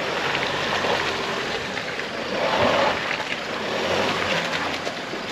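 Four-wheel-drive vehicle on the move, heard mostly as a steady rushing noise that swells and fades.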